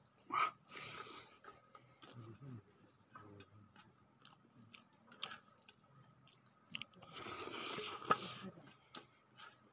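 A man chewing food eaten by hand, with wet mouth smacks and clicks and a loud smack about half a second in. A longer noisy stretch comes about seven seconds in, as he lifts food to his mouth.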